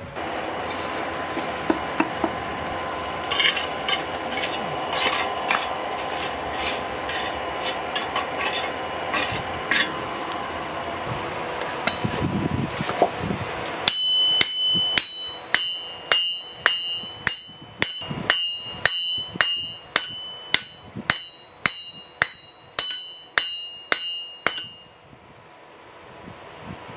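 A steady rushing noise with scattered taps, then a hammer striking steel on an anvil, about two blows a second for some ten seconds. Each blow rings with a high metallic tone, as when forging a knife blank.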